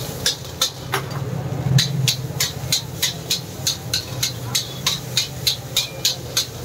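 Metal spatula striking and scraping a large iron wok as fried rice is stir-fried. The strokes settle into an even rhythm of about three a second after about two seconds, over the steady roar of a high gas burner.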